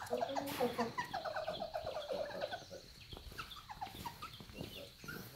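Gibbon calling: a fast run of short pitched notes with sliding whoops. It fades after about two and a half seconds, leaving a few faint scattered calls.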